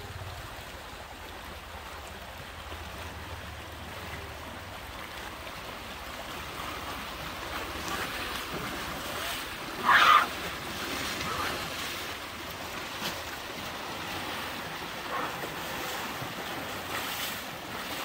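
Elephants wading through a shallow river: water sloshing and splashing around their legs, with wind on the microphone. A brief, sharper sound stands out about ten seconds in.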